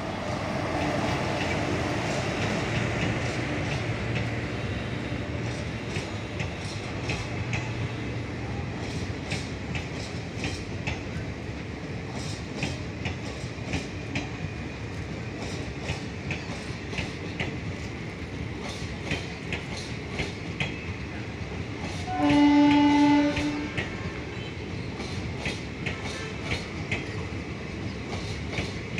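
A passenger train rolls past close by, its wheels clicking over the rail joints in a steady clickety-clack over the running rumble. About two-thirds of the way through, a train horn sounds once for about a second, the loudest moment.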